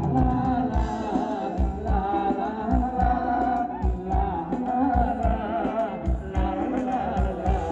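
Live Thai ramwong dance music: a sung melody over a steady bass-drum beat of about two strokes a second.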